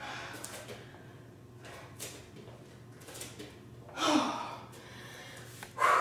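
A woman's hard breathing and gasping exhales while exercising, with two louder, slightly voiced gasps about four seconds in and near the end.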